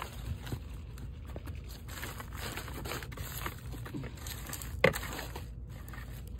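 Small hand rake scratching and raking through dry wood-chip mulch and soil in a plastic pot, a run of irregular scrapes and crackles as granular fertilizer is worked in, with one sharp knock about five seconds in.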